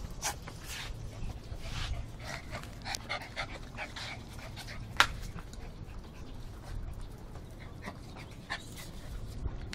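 Small dog panting close to the microphone, with scattered light clicks and taps and one sharp click about halfway through.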